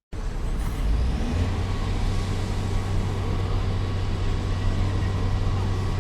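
A heavy engine running steadily, with a deep low drone that comes in about a second and a half in over a rough rumble.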